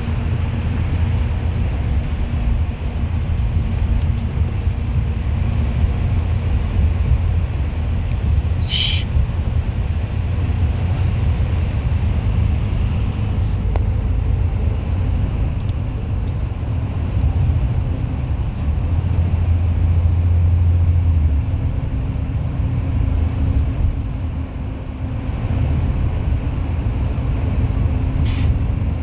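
A bus's engine and road noise: a steady low rumble that swells briefly about two-thirds of the way through, with a short high squeak twice.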